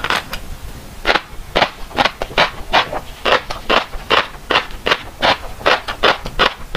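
Close-miked chewing of a mouthful of fish roe, the eggs crunching and popping in a steady rhythm of about two to three bites a second, starting about a second in.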